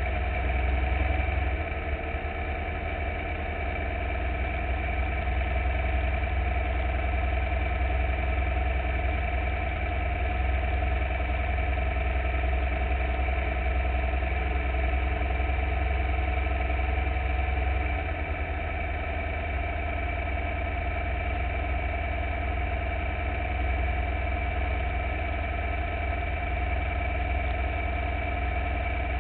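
Formula Vee's air-cooled Volkswagen flat-four engine idling steadily with the car standing still, its sound dropping slightly about two-thirds of the way through.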